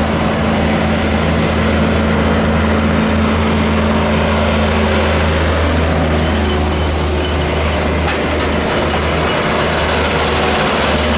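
Airbus A320-232's two IAE V2500 turbofan engines and the aircraft rolling out on the runway just after touchdown: a loud, steady rumble with a low hum.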